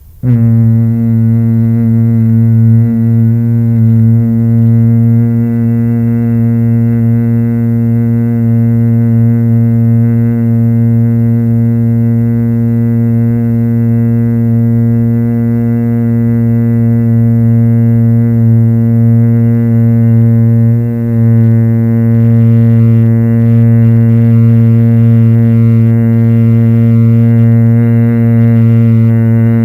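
A man humming one long, low note at a steady pitch on the exhale in bhramari pranayama (bee breath), a humming sound like a honey bee.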